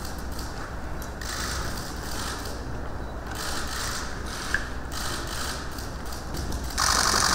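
Camera shutters firing in rapid bursts of clicks, three bursts in all, the last and loudest starting near the end.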